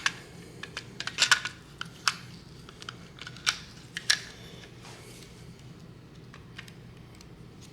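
Small sharp clicks and taps of plastic and metal parts being handled while reassembling a 3D printer hotend, a cluster in the first two seconds and a few more around three and a half to four seconds in, then only faint handling over a low hum.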